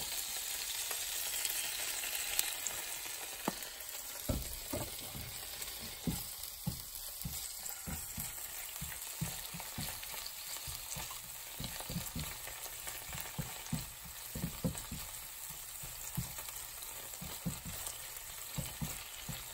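Squid and green onion sizzling in oil in a nonstick frying pan, with a steady hiss. A silicone spatula stirring them knocks and scrapes against the pan in many short irregular taps from about four seconds in.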